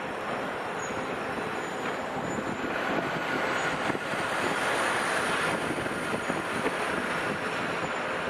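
Steady rush of passing traffic, swelling about three seconds in and easing off again near the end.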